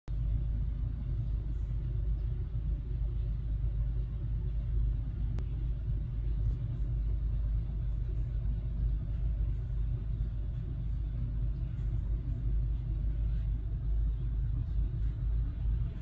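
Steady low rumble of outdoor background noise, fluttering in level, with a few faint high ticks or chirps scattered through it.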